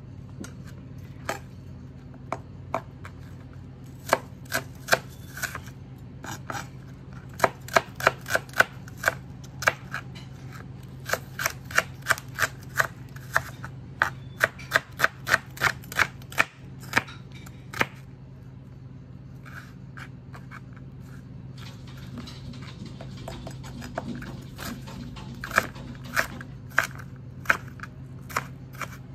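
Chef's knife chopping shallots on a plastic cutting board: a run of sharp taps, coming about three a second in the middle, then a pause of a few seconds before more taps near the end.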